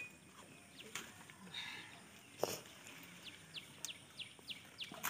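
A bird calling in a quick run of short, falling chirps, about four a second, in the second half. There is a single sharp tap about two and a half seconds in.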